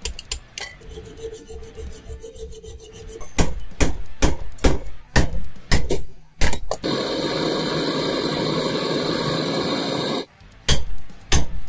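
Hammer blows on a drift driving a rubber suspension bushing out of a control arm clamped in a steel bench vise: a run of sharp metal strikes and knocks. About seven seconds in they give way to the steady hiss of a gas blowtorch flame heating the bushing eye for about three seconds, and a few more knocks follow near the end.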